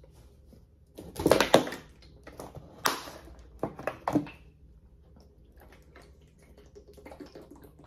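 A plastic gallon water jug handled and opened, with several sharp crackles and clicks of the plastic in the first half. Faint gulps of water follow as it is drunk from near the end.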